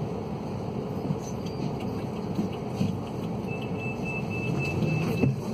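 Scania K280UB city bus standing with its DC09 engine idling, heard from inside the passenger cabin. From about halfway through, a row of about six short, high-pitched beeps sounds, and a brief clatter comes just before the end.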